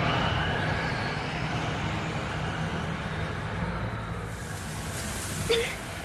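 Steady rumbling outdoor noise that starts suddenly and slowly fades, with one short, sharp, high-pitched sound about five and a half seconds in.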